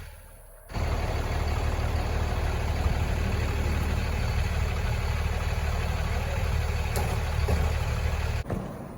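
Vehicle engine idling with a steady low rumble, broken by short quiet gaps at the very start and near the end.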